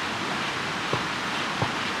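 Campfire burning with a steady hiss, and the wood cracks with sharp pops twice.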